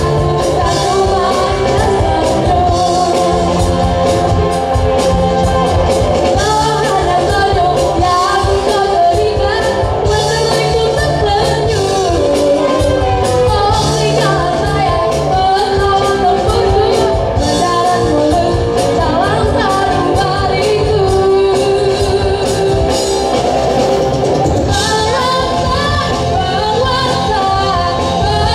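Live rock band playing a song, a woman singing lead over electric guitar, bass, drums and keyboard, amplified through the stage sound system.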